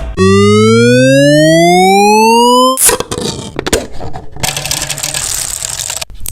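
A loud, steady tone rising smoothly in pitch for about two and a half seconds, then cutting off sharply, followed by the scraping, rubbing and clicking of a handled 3D-printed plastic fidget toy.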